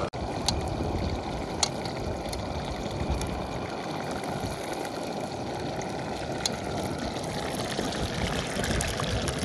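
Meat sizzling as it fries in a cast-iron kazan over a wood-fired stove, a steady frying hiss, with a few sharp crackles from the burning firewood.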